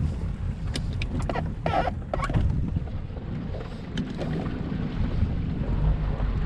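Low, steady rumble of wind buffeting the microphone, with a few sharp clicks and a short rattle about two seconds in.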